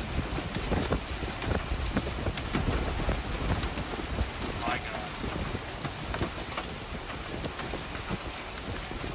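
Heavy rain and hail from a supercell's core pelting the pavement and a metal fuel canopy: a dense steady hiss with frequent sharp hailstone clicks and knocks.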